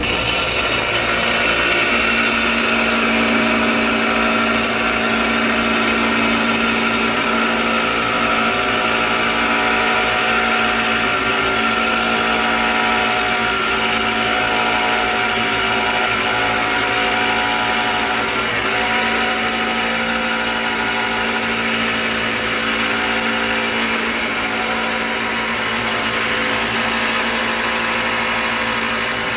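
Electric grinding tool running steadily and loudly, grinding the weathered surface and bad spots off agate rocks to shape them before tumbling.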